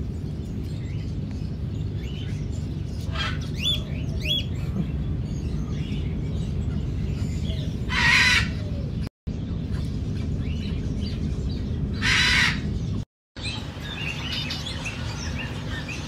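Aviary birds calling: scattered short chirps and whistles, with two louder, noisy squawks about eight and twelve seconds in, over a steady low hum.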